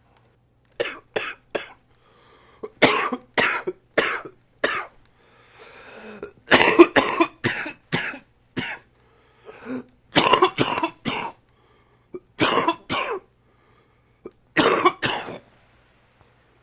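A man coughing in about six fits of two to five harsh coughs each, with short pauses between the fits; it is a chest cough from a cold that has settled in his chest.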